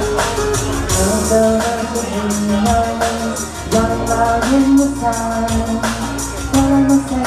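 Karaoke singing: a voice singing a melody over a recorded backing track with a steady beat, through the club's PA.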